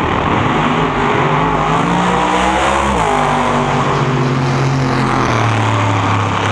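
Drag radial race cars running at full throttle down the drag strip, a loud engine note that drops in pitch about 3 seconds in and again about 5 seconds in.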